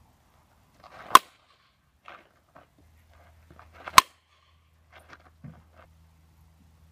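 Softball bat hitting tossed softballs: two sharp cracks about three seconds apart.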